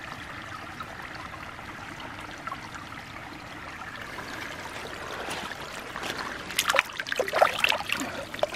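Shallow stream water trickling steadily. From about six and a half seconds in come irregular splashes and sloshing as a muddy plastic toy is swished through the water to wash it clean.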